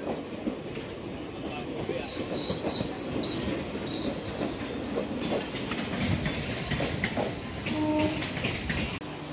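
Passenger coaches of an arriving express train rolling past the platform, their wheels clacking and rumbling over the rail joints. A thin, high-pitched wheel squeal comes in about two seconds in and lasts a couple of seconds. A brief pitched sound stands out near the end.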